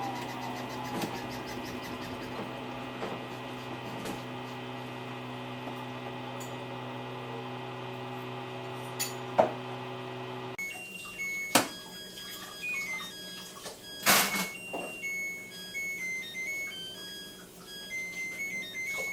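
Samsung Eco Bubble washing machine humming steadily, then cutting off suddenly about ten seconds in. Its electronic end-of-cycle tune of high beeping notes follows, with a few knocks.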